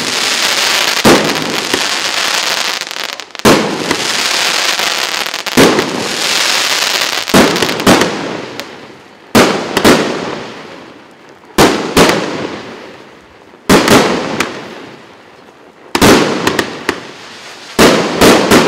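A 25-shot, 1.25-inch consumer fireworks cake (Russkaya Pirotekhnika Neon 25) firing. Sharp shot-and-burst bangs come about every two seconds, often in quick pairs. Through the first half there is a dense hiss of crackling sparks, and later each bang fades out before the next.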